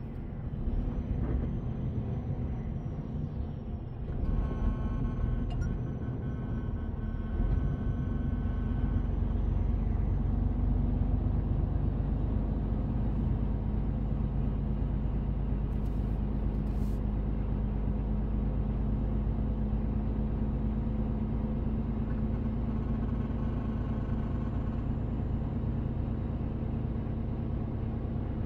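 A 480 hp truck's diesel engine running at low speed, heard from inside the cab as a steady hum. It gets louder about four seconds in and then holds steady.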